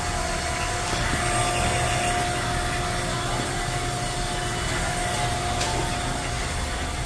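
Vacuum pump running steadily, a constant hum with a steady tone, pulling a vacuum on a refrigerated display case's circuit after its leaks were repaired.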